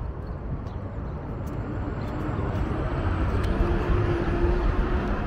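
A motor's rumble growing slowly louder, with a steady hum coming in about two and a half seconds in.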